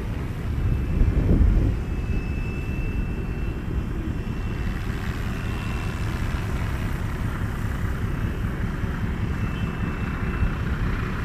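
FW450 electric 3D RC helicopter flying at a distance, a faint steady whine from its motor and rotors, over a low rumble of wind on the microphone that swells about a second in.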